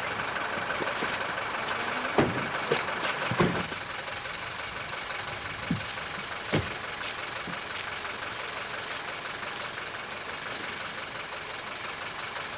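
Mercedes saloon's car doors being shut: several thumps, the loudest about two and three and a half seconds in and lighter ones about six and six and a half seconds in, over a steady hiss.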